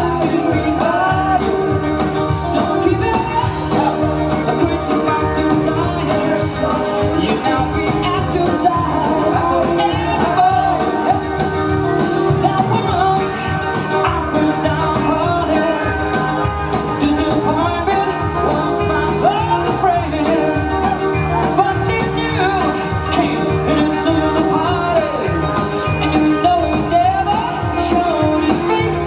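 Live rock music: a singer over a band, with a steady drum beat and cymbals.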